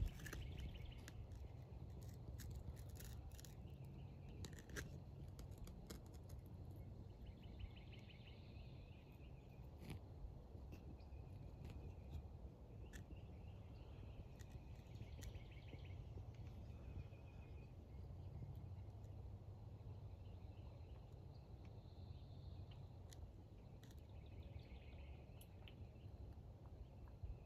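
Faint outdoor ambience: small birds give short trilled calls every few seconds over a low steady hum, with scattered sharp clicks, most of them in the first several seconds.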